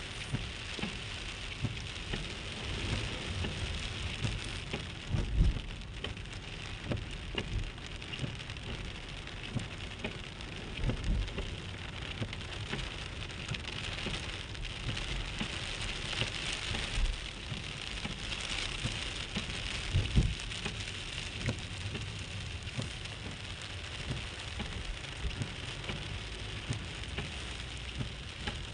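Heavy rain beating steadily on a moving car's windscreen and roof, heard from inside the car, with a few low thumps now and then.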